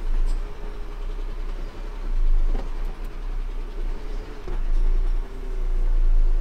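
Renault car-transporter lorry's diesel engine running as it is driven slowly, a deep rumble with a faint wavering whine over it and a couple of short knocks.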